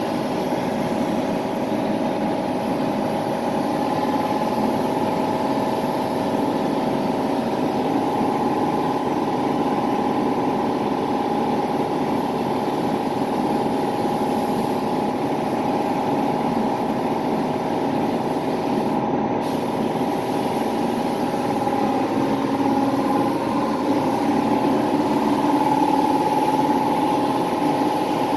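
Gravity-feed air spray gun spraying primer with a steady hiss of compressed air, over the steady drone of the shop air compressor running. The hiss breaks off for a moment about two-thirds of the way in.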